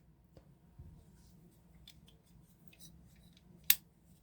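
Faint handling of a folding knife, small rustles and ticks, with one sharp click about three and a half seconds in.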